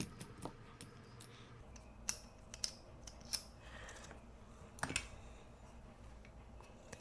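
Scattered light clicks and taps of small metal parts and a hand tool being handled while a small-engine carburetor is taken apart.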